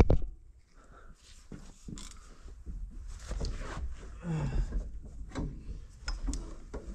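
A mechanic's handling noise while reaching down to fit a socket wrench on an engine's crankshaft bolt: scattered light metal clicks and knocks, with a short grunt about four seconds in.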